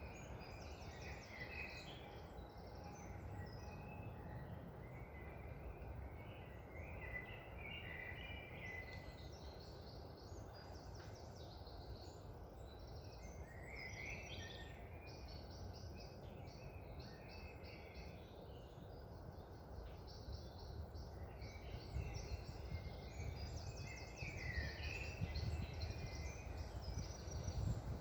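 Songbirds chirping and trilling, several calls overlapping, over a steady low rumble of wind that grows louder near the end.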